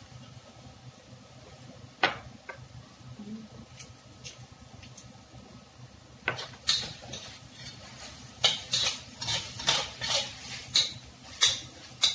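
Metal spatula scraping and knocking against a wok while stir-frying: a single knock about two seconds in, then from about halfway a run of quick scrapes, roughly three a second.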